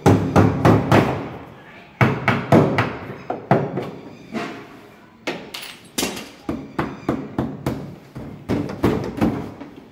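Repeated loud knocks and bangs of a hand tool against the plastic tub and metal cabinet of a dismantled front-load washing machine, about two to three strikes a second in runs with short pauses.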